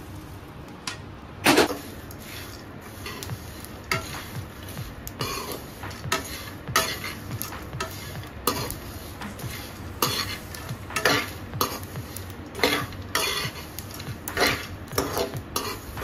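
A metal spoon stirs and scrapes peanuts, coconut pieces, garlic and spices being dry-roasted in a kadai, clinking and scraping against the pan at an irregular pace, with a sharper clank about a second and a half in.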